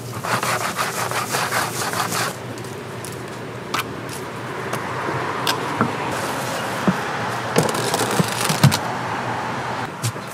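Hot frying oil crackling and sizzling for about the first two seconds, then stopping. After that, a few scattered clicks and knocks from metal trays of fried donuts being handled, over a steady background of street noise.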